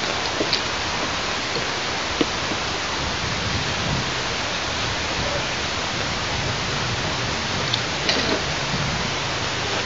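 Steady hiss of wind over the nest-cam microphone, with a few light crackles of plastic sheeting and nest sticks being handled, a cluster of them near the end.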